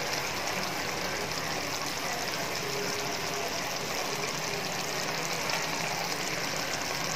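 Laing (taro leaves and pork in coconut milk) sizzling in the pan, a steady hiss.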